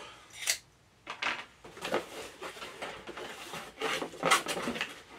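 Cardboard shipping box being opened by hand: its flaps scrape and rustle in a run of short strokes, after a short sharp sound about half a second in.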